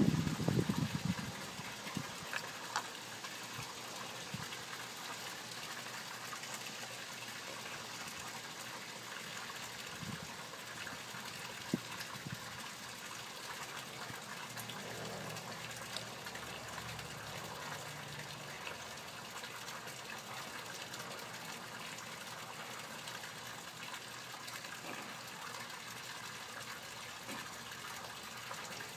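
Steady rush of running water in the background, with a few faint clicks. At the very start a PVC fitting is set down on the table with a brief knock.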